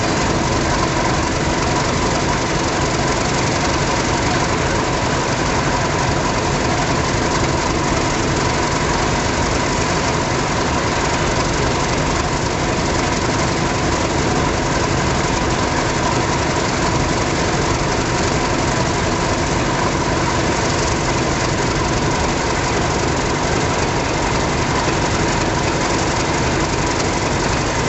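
British Rail Class 31 diesel-electric locomotives idling steadily after start-up, their English Electric V12 diesels running with a steady high tone above the engine note.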